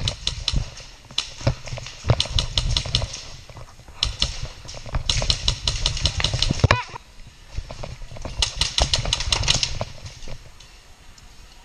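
Polarstar HPA-powered airsoft rifle firing several quick strings of rapid shots, each shot a sharp click, with short pauses between the strings.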